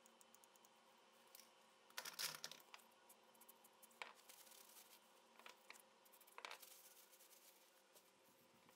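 Faint clicks, scrapes and rustling as small steel parts of an old shotgun's trigger assembly are handled in gloved hands, with a louder cluster of clicks and scraping about two seconds in and single clicks near four and six and a half seconds.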